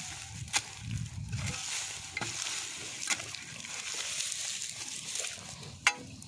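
A short-handled digging tool chopping and scraping into dry soil and grass roots, with a few sharp strikes among steady crackly scraping and rustling.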